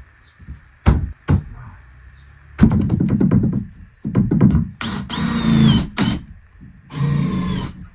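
Knocks and clatter of wooden tongue-and-groove boards, then a power drill running in two short bursts, about five and seven seconds in, its whine bending up and down in pitch.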